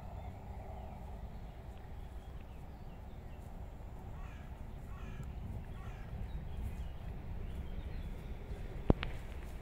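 Outdoor ambience with a low rumble and faint bird calls a few seconds in. A single sharp click comes near the end.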